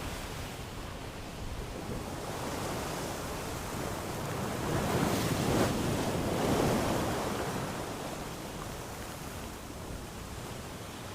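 Ocean surf: a steady wash of waves that swells to a peak about halfway through, as a wave breaks, then eases back down.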